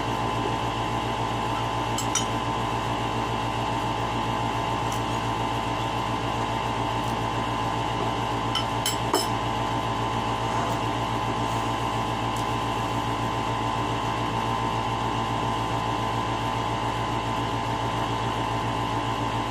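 Steady mechanical hum from a running room appliance. A few light clicks of a spoon against a dish come about two seconds in and again around nine seconds.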